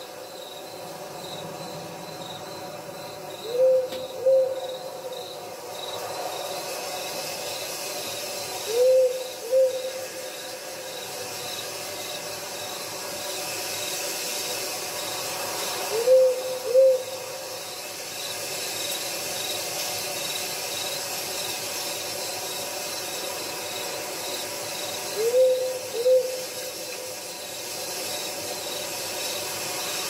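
An owl hooting four times, each call a pair of short hoots, spaced several seconds apart. Under it runs a continuous, rapid chirping of crickets or other night insects.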